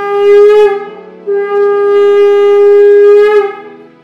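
Conch shell (shankha) blown in long, steady, loud blasts: one ends well under a second in, and a second is held from just over a second in until near the end, each dipping slightly in pitch as it stops.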